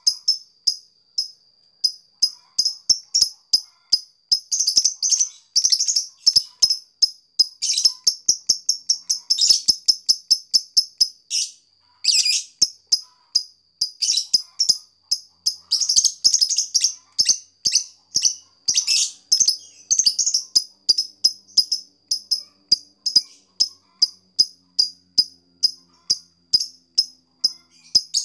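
Fischer's lovebird singing a long run of sharp, rapid ticking chirps, the 'ngetik' song, several notes a second in denser bursts with one short pause about halfway through.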